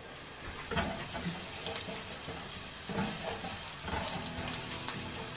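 Wooden spatula stirring food in a stainless-steel frying pan, with light scrapes over a faint steady sizzle.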